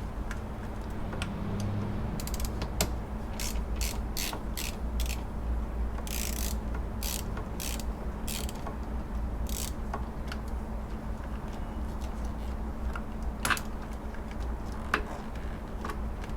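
Socket ratchet wrench clicking in a dozen or so short strokes while loosening the car battery's terminal nut, followed near the end by a few single sharp clicks.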